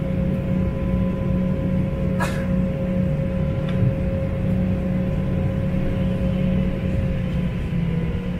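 Steady cabin noise inside an Embraer regional jet parked at the stand: a low hum under a held whine that begins to sink in pitch near the end, with a single click about two seconds in.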